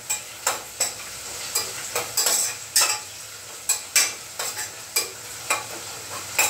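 Metal ladle scraping and clinking against a stainless steel pressure cooker as sliced onions are stirred while frying in oil, over a steady sizzle. The scrapes come irregularly, about two a second.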